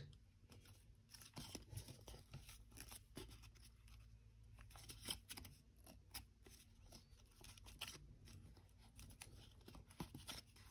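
Faint rustling and crinkling of dark blue 80 gsm origami paper being folded and creased by hand, with scattered soft crackles as it is pinched and pressed.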